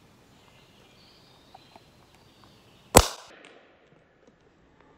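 A single sharp shot from a Goblin Solo miniature CO2 paintball pistol about three seconds in, with a brief ringing tail: a low-powered shot of about 147 FPS.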